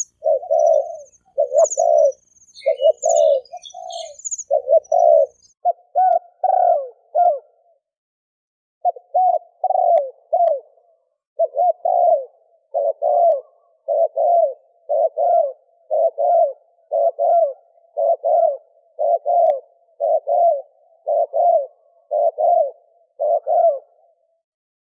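Spotted dove giving a long run of low, repeated coos at about one a second, in the 'thổ kim' voice used on lure recordings to call in wild doves. The calling pauses briefly about eight seconds in and stops just before the end. Faint high chirps from a small bird sound over it in the first few seconds.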